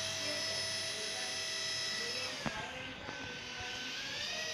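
Sensor ball helicopter toy's small electric motors and rotor blades whirring with a high, steady whine. The pitch drops slightly just after a light knock about halfway through and rises again near the end.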